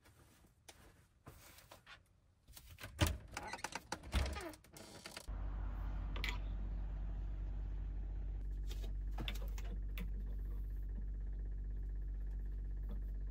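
Soft handling clicks and rustles for about five seconds. Then a steady low hum starts abruptly and runs on, with a few light clicks over it.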